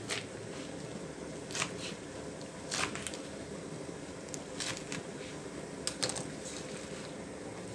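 Kitchen knife slicing melinjo leaves on a wooden cutting board: a handful of irregular knocks of the blade against the board, with leaves rustling, over a steady low background hum.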